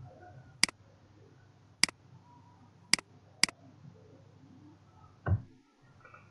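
Four sharp computer mouse clicks spread over the first three and a half seconds, then one duller keyboard keystroke about five seconds in as the selected text is deleted.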